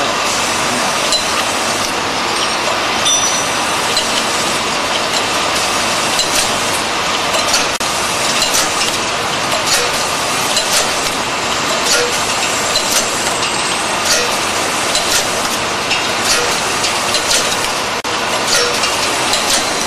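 Automatic eye-drop bottle filling and capping machine running: a steady mechanical clatter with clinks of small plastic bottles and a sharp click about once a second as the turntable indexes.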